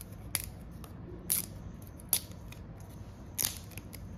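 Thin bamboo sticks being split lengthwise with a knife: about four sharp cracks spread through, with smaller crackles between them.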